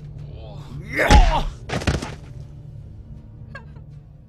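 Fight-scene hit sounds: a cry ending in a heavy thud about a second in, then a second sharp hit near two seconds, over a low steady music drone.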